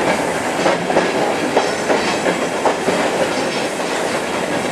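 Railroad caboose rolling along the track, heard from inside the car: a steady rumble and rattle with irregular clacks of the wheels over rail joints about every half second to second.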